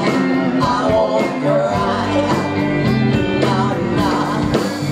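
Live band playing: a woman singing lead over electric guitar, bass guitar and a steady drum beat.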